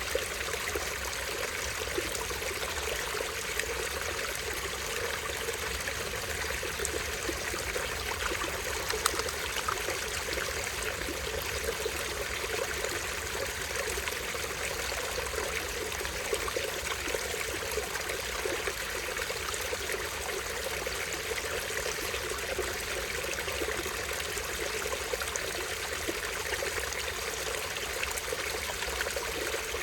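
A small stream running and trickling steadily over a tiny waterfall, an even rush of water.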